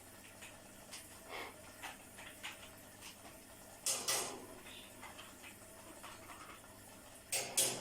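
Scattered light clicks and taps, with a brief louder scrape about four seconds in and a quick run of sharp clicks near the end.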